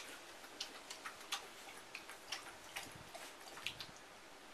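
Faint, irregular small splashes and drips of water in a kids' paddling pool: about a dozen sharp little ticks at uneven intervals.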